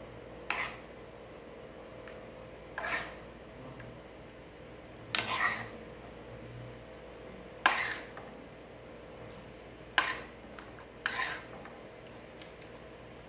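Metal spoon scraping and clinking against a nonstick frying pan and a glass dish as cooked chicken adobo is spooned out: six strokes about two seconds apart, the two sharpest clinks in the second half.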